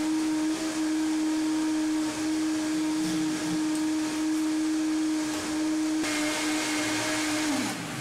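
Electric motor running with a steady hum and hiss, then winding down, its pitch sliding lower near the end as it stops.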